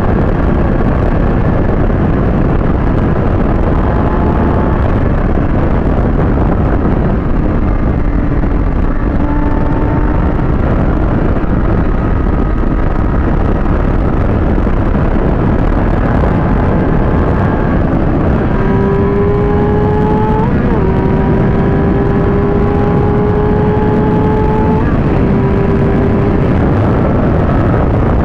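Heavy wind noise on the microphone at riding speed, with the Kawasaki ZX-6R's inline-four engine note underneath. In the second half the engine pitch climbs slowly, with a brief break partway through.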